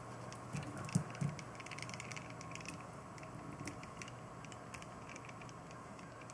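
Faint scattered ticks and a few light taps as the pump block of an all-in-one water cooler is shaken over a plastic tub to get the last drops of coolant out, drops and handling knocking on the plastic.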